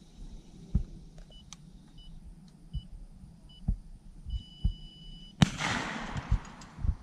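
Several short electronic beeps, then one held beep about a second long, followed by a single shotgun shot at about five and a half seconds in, its report ringing out and fading.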